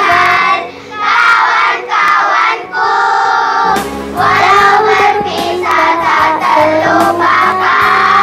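A choir of primary-school children singing a farewell song together in unison, phrase by phrase with short breaths between lines.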